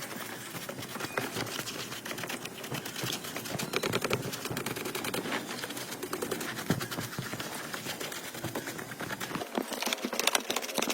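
Rapid, dense clicking and rattling of small hard objects; near the end it turns into a faster, finer clicking.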